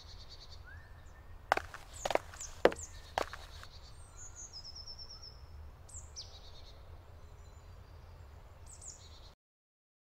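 Woodland birds chirping, with several quick falling calls and a short trill, over a faint low rumble. Four sharp knocks come about half a second apart between one and a half and three seconds in. The sound cuts off suddenly just before the end.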